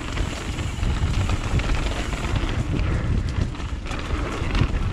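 Wind buffeting the microphone of a mountain biker riding down a dirt trail, a steady low rumble with the bike's rolling rattle underneath.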